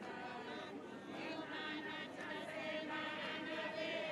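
A group of women singing together in chorus, with a long held note near the end.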